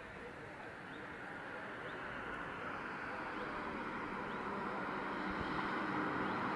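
Town-street ambience: a steady rush of noise that grows gradually louder, with short bird chirps over it.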